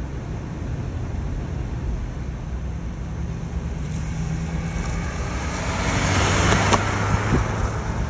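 Road and engine noise of a moving car: a steady low rumble with a faint engine hum. In the second half a rush of noise swells and fades over about three seconds.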